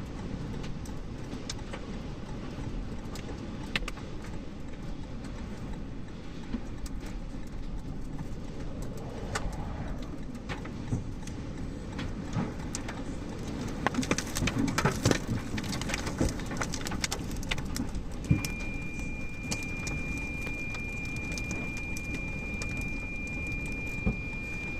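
Storm wind and rain battering a car: a steady rumble with frequent sharp knocks and rattles of debris striking it, busiest about fifteen seconds in. About eighteen seconds in, a steady high-pitched beep comes in and holds.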